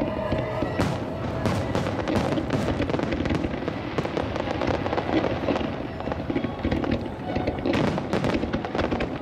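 Aerial fireworks display: shells bursting and crackling in quick succession, with a thicker flurry of crackles near the end.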